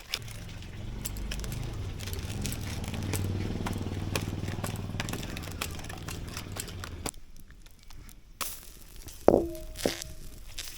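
A low engine hum runs for about seven seconds, with faint crackling over it, then stops. About nine seconds in, a metal cooking pot or utensil is knocked and rings briefly, with a few lighter knocks after.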